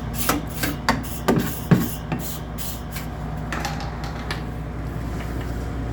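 A stiff brush scrubbing the condenser coil of a True commercial refrigerator: a run of short scratchy strokes, about two to three a second, that thins out after a couple of seconds. Underneath is a steady low hum.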